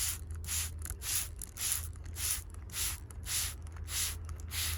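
Sprayer on a scent blender hissing in short repeated squirts, about two a second, as the scent mixture is sprayed out, with a steady low hum underneath.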